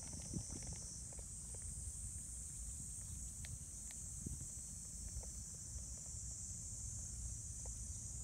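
A steady, high-pitched chorus of insects that holds unchanged throughout, over a low rumble with a few faint, soft clicks.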